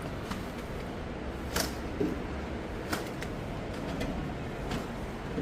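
A few light clicks and knocks over a steady low rumble of background noise.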